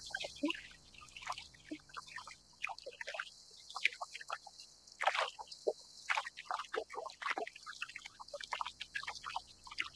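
Small waves lapping against a kayak's hull: irregular soft plops and slaps, several a second.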